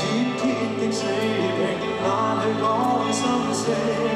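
Live band accompaniment of a slow Cantopop ballad, playing on between sung lines, with a steady bass line under held chords.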